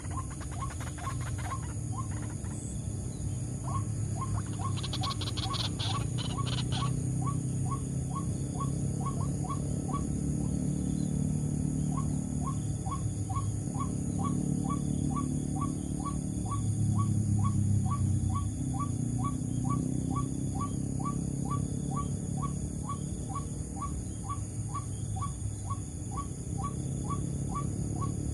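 White-breasted waterhen (ruak-ruak) calls: one short note repeated over and over, irregular at first, then steady at about two a second from around twelve seconds in, over a steady low rumble.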